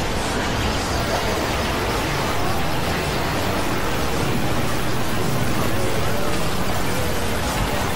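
Soundtracks of many videos playing at once, their music, voices and effects piled into a dense, steady wall of noise, with a few faint wavering tones showing through.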